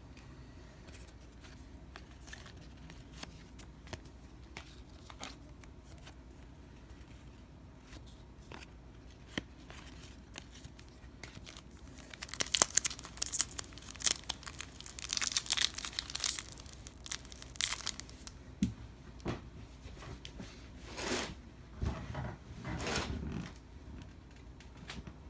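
A trading card pack wrapper being torn open and crinkled. After faint scattered ticks, a dense run of tearing and crackling comes about halfway through, followed by a few shorter rustles near the end.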